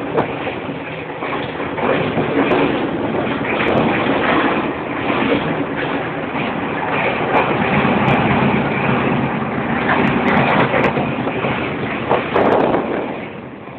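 Passenger train carriage running on the rails, heard from inside the car: a loud steady rumble and rattle with scattered clicks and knocks, easing off a little near the end.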